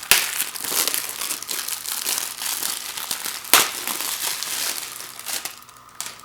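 Crinkling and crumpling of the plastic shrink wrap being peeled off a new Blu-ray case, with one sharp snap about halfway through. It dies down near the end.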